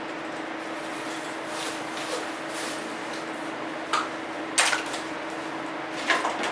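A steady hum and hiss, with a few sharp knocks of hard objects being handled, three of them in the second half.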